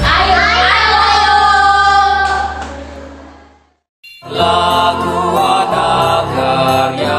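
Music with singing holds a final chord and fades out to a moment of silence; just after four seconds in, new music starts abruptly.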